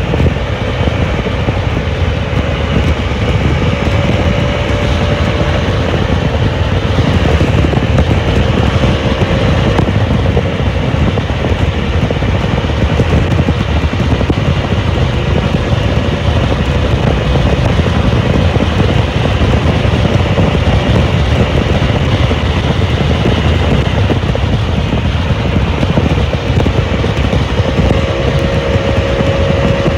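Bajaj Dominar 400's single-cylinder engine running steadily at highway cruising speed, around 130 km/h, with wind rushing past. The engine note holds steady and edges up slightly near the end.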